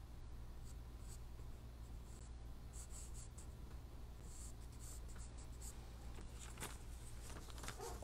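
Pencil sketching on drawing paper: faint, scratchy strokes in short runs, busiest in the second half, over a steady low hum.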